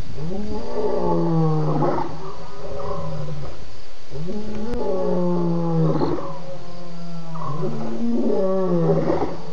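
At least two lions roaring over each other: a run of long, falling roars, a new one starting about every second.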